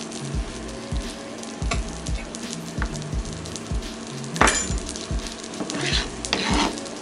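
Flautas sizzling steadily as they fry in a pan. A sharp clatter comes about four and a half seconds in, and a spatula scrapes across a plastic cutting board near the end, over background music with a low beat.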